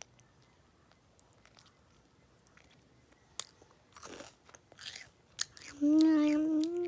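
A child chewing a piece of candy with faint clicks and short crunchy mouth sounds, then, about six seconds in, a long, nearly level-pitched hum from her voice, the loudest sound here, as she grimaces at the candy's taste.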